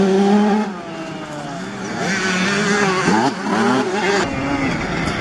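Two-stroke motocross bike engines revving through a dirt-track corner, their pitch rising and falling with the throttle. The nearest bike fades out about a second in, then more engines rise again.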